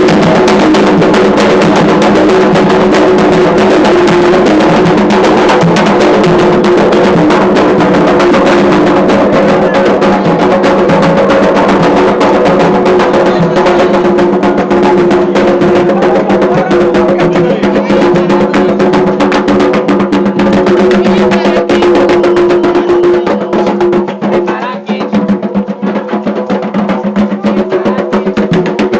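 Loud Candomblé ceremonial drumming on atabaque hand drums, a dense continuous beat with wood-block-like clicking percussion, dipping briefly near the end.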